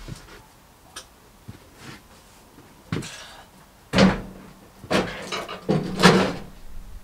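A few irregular knocks and clunks, some with a short hollow ring, the loudest about four and six seconds in.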